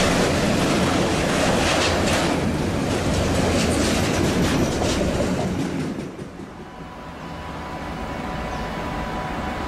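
Container freight train rolling past: a steady rumble of wagons with wheels clicking over the rail joints. About six seconds in it drops away abruptly to a much quieter background with a faint steady tone.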